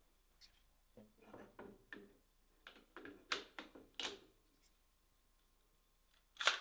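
AR-15-type rifle's upper and lower receivers being fitted back together by hand: a run of soft metal knocks and scrapes, then two sharp clicks near the end as the halves close up.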